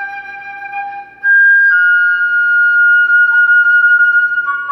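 Background music: a solo flute melody. About a second in it jumps to a loud high note that is held for about three seconds.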